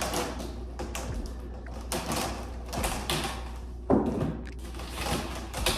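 Handling noise from stock being arranged on a display: irregular rustling, light knocks and clatter.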